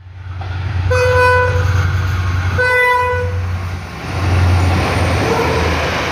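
Class M11 diesel-electric locomotive approaching and passing: two horn blasts of about a second each over the engine's low drone, then the rushing noise of the train going by.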